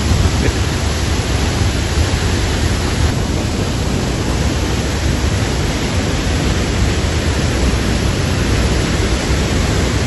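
Punch Bowl Falls on Eagle Creek pouring into its pool: a loud, steady rush of falling water.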